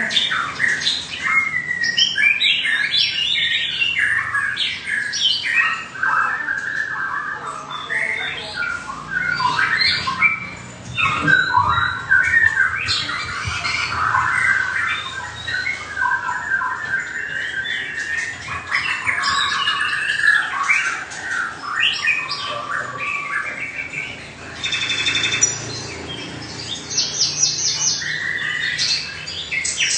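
Caged white-rumped shamas singing: a long, unbroken run of varied whistled and chattering phrases, with a buzzy rattle about 25 seconds in and fast repeated notes near the end.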